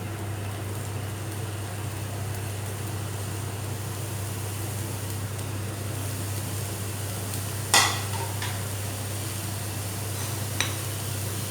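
Chopped mushrooms, capsicum and onion sizzling in butter in a frying pan as they are stirred, with one sharp knock against the pan about eight seconds in and a lighter tap near the end.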